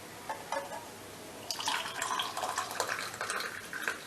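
Hot decoction being poured from the pot through a strainer into a glass: two light clinks, then a steady splashing trickle of liquid starting about a second and a half in.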